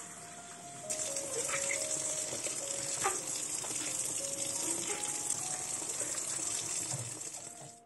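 Kitchen tap running into a stainless steel sink, the stream splashing on the steel basin and on a sponge held under it. The flow comes on strongly about a second in and is steady after that.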